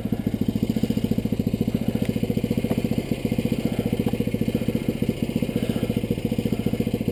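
Yamaha Rhino side-by-side's single-cylinder engine idling with a steady, even chug.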